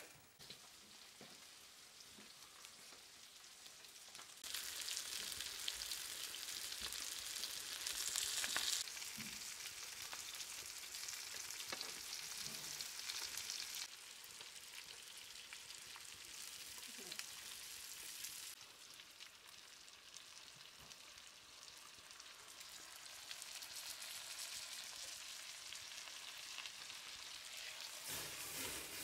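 Small bluefish and horse mackerel frying in oil in a pan: a steady sizzle that sets in about four seconds in, is loudest around eight seconds in, and falls back a little at about fourteen seconds.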